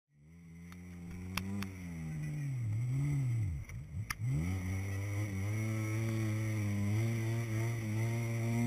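Off-road 4x4's engine pulling under load through deep snow; its revs dip sharply and swing back up a few seconds in, then hold with a slight waver. A few sharp clicks in the first half.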